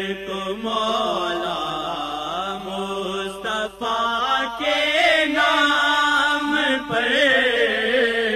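Devotional vocal chanting in the style of a naat: a voice sings long, wavering, melismatic lines over a steady held drone.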